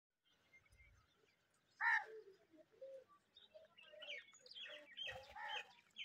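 Common mynas calling: one loud call about two seconds in, then a string of varied chattering calls over the last few seconds.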